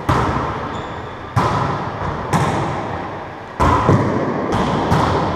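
Wallyball rally: the rubber ball struck by players' hands and rebounding off the court walls, sharp smacks roughly once a second and closer together later on, each ringing out in a long echo from the enclosed racquetball court.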